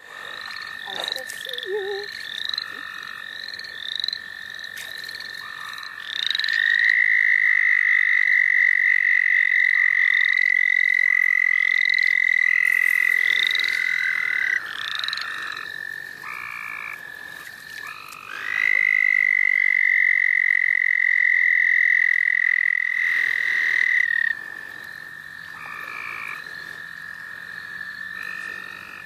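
Frog and toad chorus on a spring night, led by an American toad calling close by: two long, steady, high trills of about eight and six seconds. Under it runs a fainter continuous trill from more distant toads, with repeated short rising calls from other frogs.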